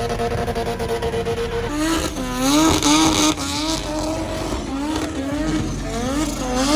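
Car engine held at a steady high pitch, then about two seconds in revving up and dropping again and again in quick sweeps, with a brief hiss early in the revving.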